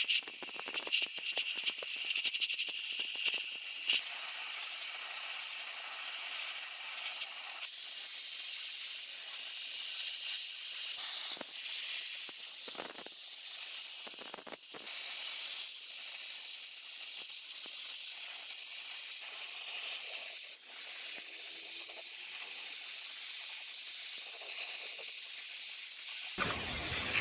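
A steady hiss, like a jet of air or spray, that breaks off briefly a few times around the middle and cuts off near the end.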